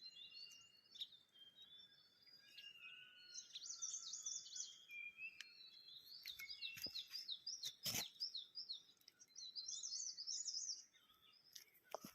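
Several small birds singing and calling at once: quick chirps, trills and short whistles overlapping throughout, with a sharp click about eight seconds in.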